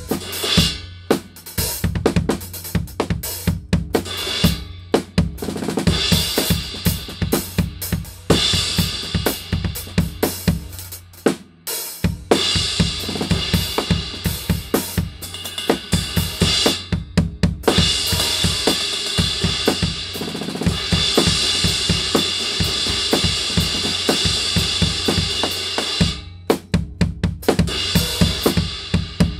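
Drum kit played in grooves and fills to show off a 19-inch Arborea Dragon crash cymbal of brilliant-finish B20 bronze, struck repeatedly over kick and snare. Through the middle stretch the crash is hit continuously in a bright, long-sustaining wash, with brief gaps between phrases.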